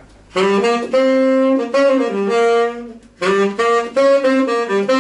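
A saxophone playing two short phrases of held notes that step up and down in pitch, with a brief break about three seconds in.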